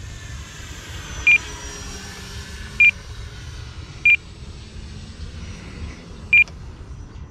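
Four short beeps from an RC transmitter, all at the same pitch and unevenly spaced, each clearly louder than the rest. Under them runs the faint, wavering whine of the E-flite Timber's electric motor in flight.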